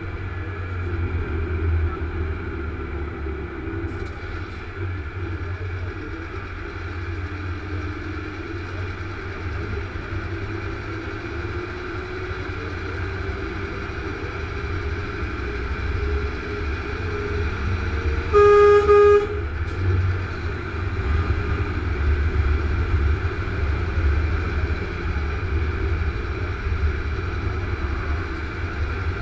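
Steady engine and road noise heard inside a truck cab at motorway speed, with a single horn blast lasting under a second about two-thirds of the way through, the loudest sound.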